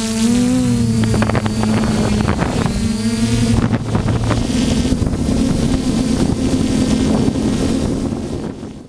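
S500 quadcopter's electric motors and propellers whining in flight, the pitch gliding up and down as the throttle changes, with wind noise on the onboard camera's microphone. It fades out near the end.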